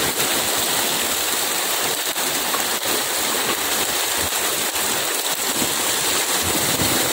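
Many fish thrashing and splashing in shallow water, crowded inside a harvest net drawn tight around them. The sound is a steady, even hiss of churning water.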